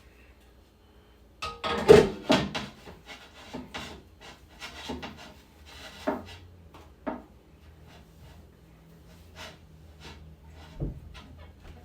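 Refrigerator shelf parts being scrubbed and handled: irregular rubbing strokes and light knocks, loudest about two seconds in, then sparser.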